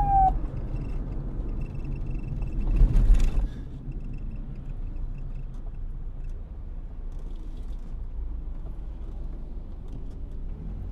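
The falling wail of a police siren cuts off just after the start, leaving a low steady rumble of road traffic, with a brief louder surge of noise about three seconds in.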